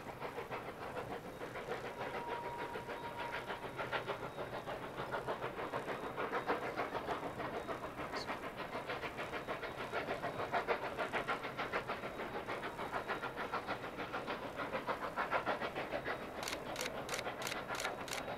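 Distant exhaust of narrow-gauge K-36 steam locomotive 487 working steadily as it approaches, a continuous rhythmic chuffing. Near the end the beats turn sharper, about three a second.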